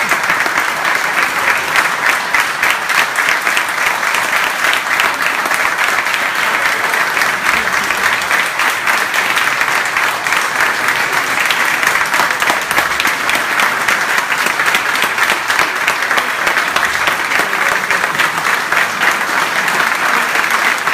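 A large audience applauding without a break, a dense patter of many hands clapping at once.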